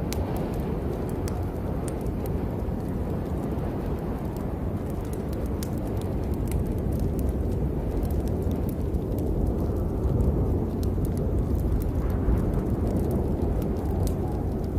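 Steady heavy rain over a deep, rumbling undertone, with many scattered sharp drop ticks. The rumble swells a little about ten seconds in.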